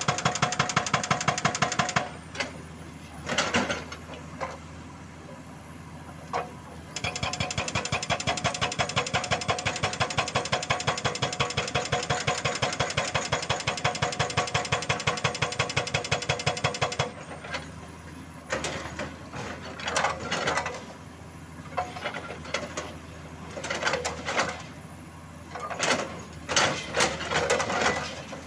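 Excavator-mounted hydraulic rock breaker hammering rock with rapid, even blows, about seven a second, stopping about two seconds in and hammering again for about ten seconds from around seven seconds in. In the pauses the excavator's engine runs, with irregular bursts of rough noise.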